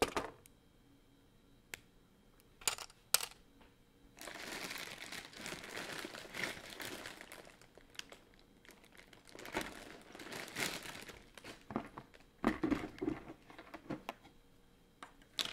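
LEGO bricks being taken apart by hand. A few sharp plastic clicks come first, then several seconds of steady crinkly rustling, then more clicks and knocks near the end.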